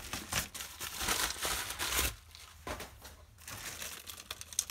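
Clear plastic bags of LEGO minifigures crinkling as they are pulled out of a poly mailer and handled, quieter for a stretch in the middle, with a sharp click near the end.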